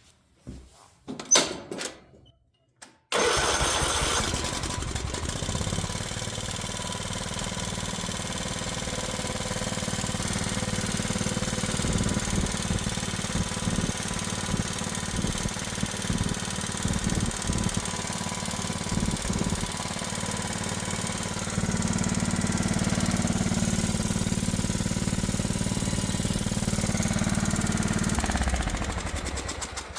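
Craftsman riding mower engine starting abruptly about three seconds in and running at a high idle, even with the carburetor idle screw backed out, with some tapping in it that the owner suspects comes from the valves. It runs louder for the last several seconds, then is shut off near the end.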